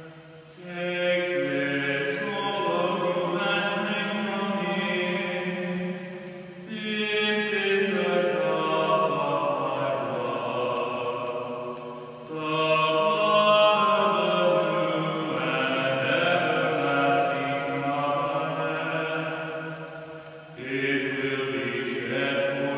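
Congregation singing a slow hymn in long, held phrases, with short pauses for breath between them. The voices echo in a stone church.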